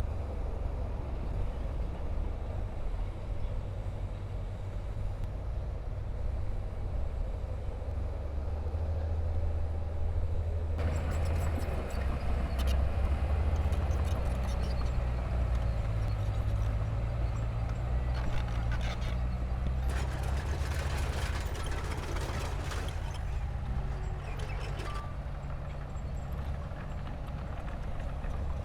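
Heavy diesel earthmoving machinery running with a steady low engine rumble. About eleven seconds in, a louder clattering with scattered knocks and clanks joins it, then eases off near the end.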